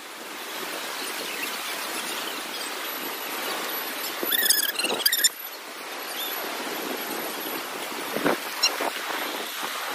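Surf washing in over a sandy beach, a steady hiss of water that swells and eases. About four and a half seconds in there is a short high-pitched squeal.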